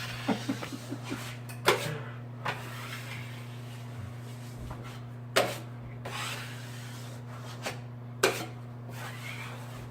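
Drywall taping knife scraping joint compound out from under paper tape, with a few sharp clicks of the knife, over a steady low hum.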